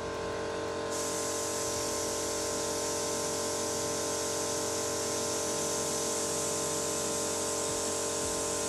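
Compressed air hissing steadily through an air chuck into the air valve of a water system's expansion vessel, starting about a second in, over a steady machine hum. The vessel's deflated air charge is being pumped back up to its original pressure.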